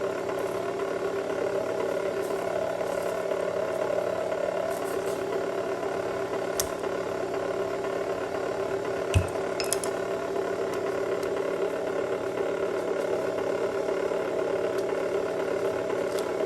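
Copper wire stripping machine running steadily, its motor and gears whirring as heavy cable goes through it. A sharp click about six and a half seconds in and a short knock about nine seconds in.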